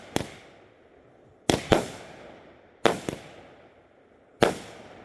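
Fireworks going off: about six sharp bangs, some in quick pairs, each trailing off in a rolling echo.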